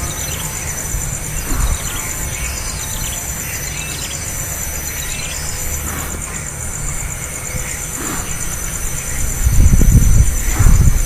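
Nestling birds giving short squealing begging chirps over a steady high insect buzz, with loud low bumps and rumbling near the end.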